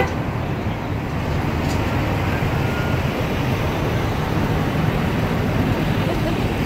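Steady city street traffic noise, a low rumble of vehicles, with one short sharp knock right at the start.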